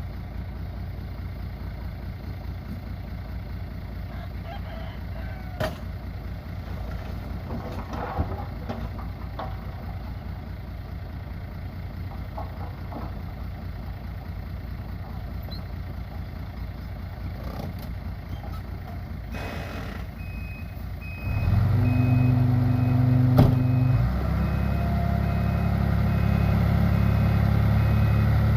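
Heavy diesel earthmoving machinery running. About three-quarters of the way through a machine's engine comes in much louder, and a reversing alarm beeps in a steady repeating pattern over the last part.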